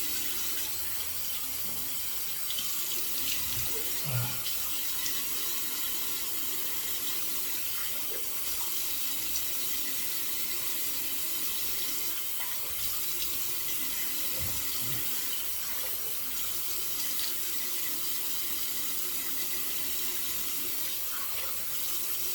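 Hot water running steadily from a bathroom tap into a sink during a post-shave face rinse, with a few brief splashes.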